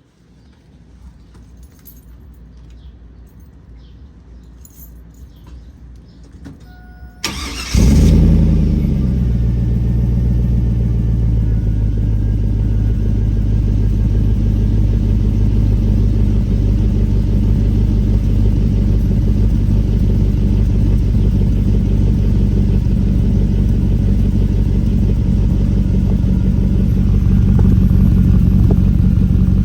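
Chevy Silverado's 4.8-litre LS V8 cranking briefly and firing up about seven seconds in, through a MagnaFlow muffler, elbow and straight 3-inch exhaust pipe. It flares to a high idle that settles down over a couple of seconds, then idles steadily.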